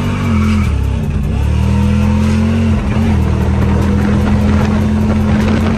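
Car engine pulling hard, its pitch climbing and dropping a few times as the transmission shifts through gears, then holding a steady high pitch for the last few seconds.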